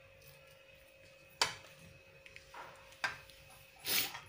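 A serving spoon clicking and scraping against a plate as upma is spooned out: a few separate light clicks, then a longer scrape near the end, over a faint steady hum.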